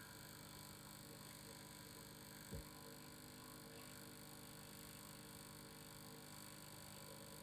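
Faint steady hum of a vibrating device, with one soft low thump about two and a half seconds in.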